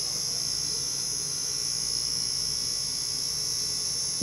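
Corded electric hair clippers running with a steady buzz while trimming a man's beard and brow line.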